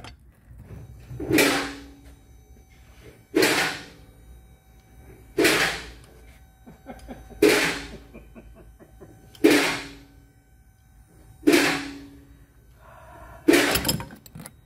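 Hammer blows driving a piston and connecting rod assembly out of a Pontiac 350 V8 block's cylinder bore: seven even strikes about two seconds apart, each with a short metallic ring.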